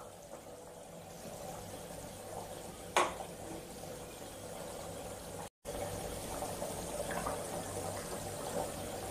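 Prawn curry boiling in a pot, a steady low bubbling. There is one sharp click about three seconds in, and the sound cuts out for an instant a little past halfway.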